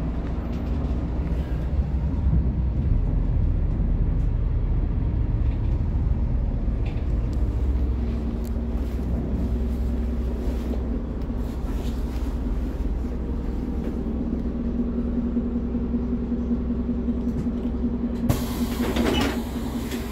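Inside a Kravtex-Kühne Credo Econell 12 low-floor bus on the move: steady engine and road rumble, with a steady hum coming up about halfway through. Near the end a loud hiss of compressed air as the bus stops and its doors open.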